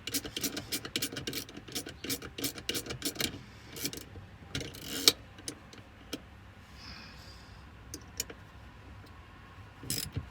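Socket ratchet clicking quickly, about five clicks a second, as a nut is run down onto the shifter box, stopping about three seconds in. A short scraping rustle follows, then a few scattered clicks and knocks.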